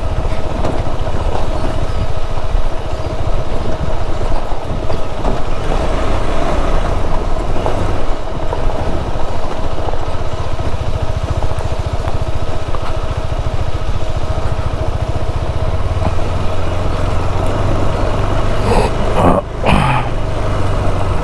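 Motorcycle engine running steadily under way on a rough mountain road, with heavy low rumble. A couple of brief knocks come near the end.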